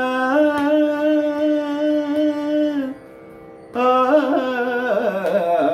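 A man singing a Carnatic devotional song unaccompanied but for a faint drone: one long held note, a short pause about three seconds in where only the faint steady drone is heard, then the melody resumes with quick ornamented turns.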